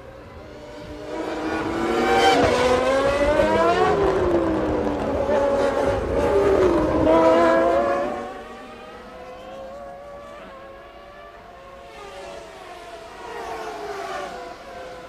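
Several 1995 Formula One cars passing at high revs, each engine's pitch dropping sharply as it goes by, several overlapping in the first half. After about eight seconds the sound falls back to quieter, more distant engines, with one more car passing near the end.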